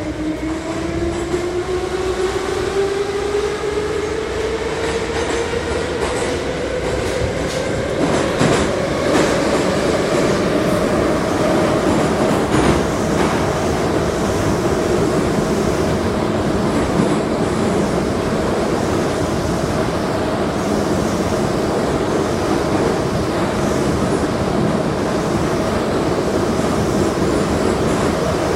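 Type 81-717/714 metro train under way: the traction drive whines, rising in pitch as the train accelerates and then holding steady at running speed, over a constant wheel-and-rail rumble. The wheels clack over rail joints several times about a third of the way in.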